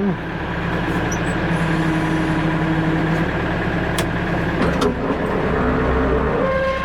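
Tractor-backhoe engine running at raised throttle while the hydraulics work the bucket, a steady drone with a whining tone that steps up in pitch near the end.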